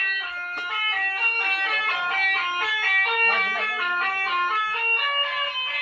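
A four-trumpet telolet horn playing a fast melody of short, steady notes, several sounding at once.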